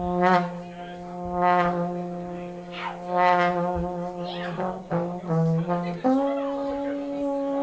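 Klezmer-punk band playing live: a long sustained horn note with a brassy, trombone-like tone, punctuated by a few cymbal-like hits. The held note jumps up in pitch about six seconds in and holds again.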